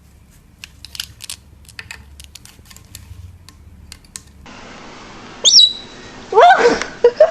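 Scattered light clicks for the first few seconds, then a pet parrot gives a short rising chirp and a few loud squawking calls that glide in pitch near the end.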